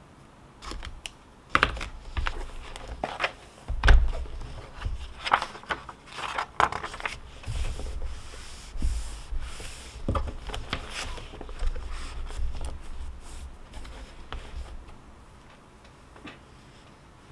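Irregular clicks, taps and rustling of things being handled on a study desk, with dull low knocks; the loudest knock is about four seconds in, and it dies down near the end.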